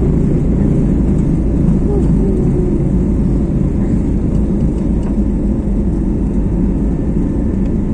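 Airliner's turbofan engines running at takeoff thrust, heard inside the cabin: a steady, loud, deep noise as the plane climbs away just after liftoff.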